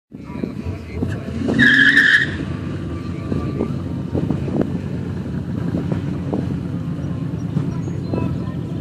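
Chevrolet Impala's 3.6 L LFX V6, fitted with Magnaflow catalytic converters and cat-back exhaust, running at low speed with a steady low exhaust rumble. A short, loud, high-pitched squeal comes about a second and a half in.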